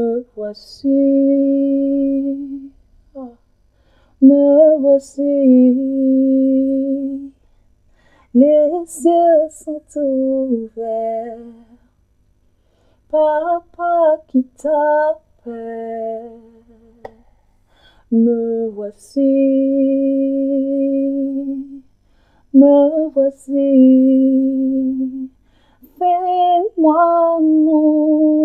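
A woman's voice singing without words, unaccompanied: phrases of long held notes that slide between pitches, separated by short pauses.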